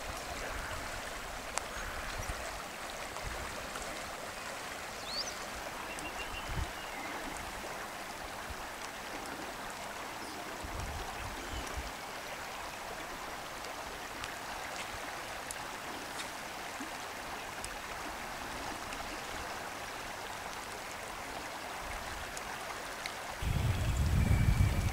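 River water running steadily over shallow riffles, a continuous rushing. A low rumble comes in near the end.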